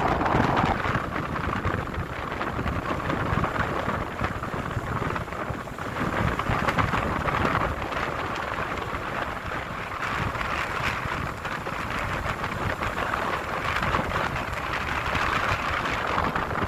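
Strong wind blowing in gusts and buffeting the microphone: a steady rushing noise with low rumbling that swells and eases every few seconds.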